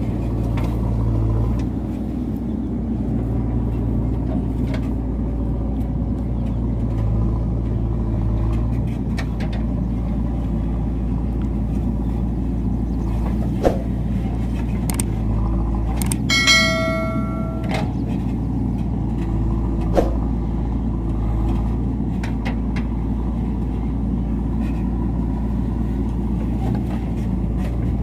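A heavy vehicle's engine runs steadily with a low rumble. Two sharp knocks and a brief steady high tone, lasting about a second and a half, come partway through.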